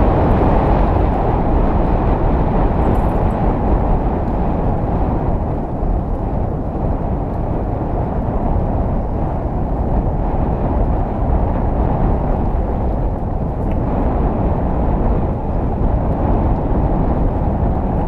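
Steady rushing of wind on the microphone of a camera riding along on a bicycle, mixed with the rumble of tyres rolling over asphalt.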